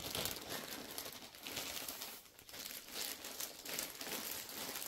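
Thin clear plastic sleeve crinkling and rustling as it is pulled off a rolled canvas, with a brief lull a little past halfway.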